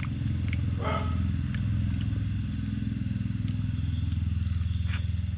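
A small engine running steadily with a fast, even putter, dying away near the end. A few faint clicks sound over it.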